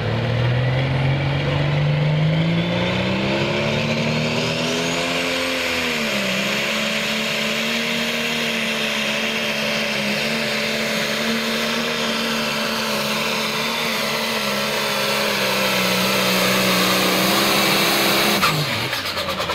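Super/Pro Stock pulling tractor's turbocharged diesel engine at full throttle hauling a weight-transfer sled. The engine note climbs over the first few seconds with a rising turbo whine, dips briefly and recovers about six seconds in, holds high and steady, then drops sharply near the end as the throttle is cut.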